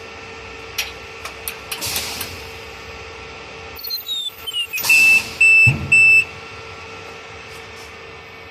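Ultrasonic welding machine with a steady hum; several sharp clicks, then falling sweeping tones, then three short, loud, high-pitched beeps about half a second apart, typical of the machine signalling an alarm message on its controller.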